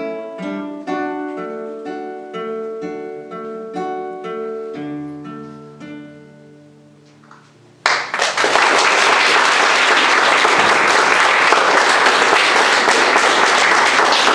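Two classical guitars play the closing notes of a duet, the plucked notes slowing and ringing away into near quiet. About eight seconds in, an audience starts applauding, loudly and steadily.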